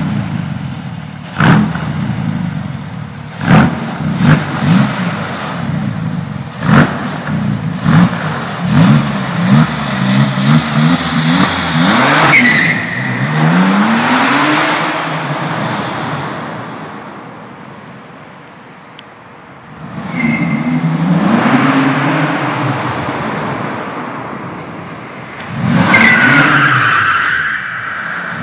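Porsche 997 Turbo's twin-turbo flat-six on stock engine software, breathing through an aftermarket sport exhaust fitted from the turbochargers back, echoing in a concrete parking garage. First comes a run of sharp throttle blips, then the revs climb as the car pulls away and fade into the distance. The car comes back with two more hard accelerations, each starting with a short high squeal.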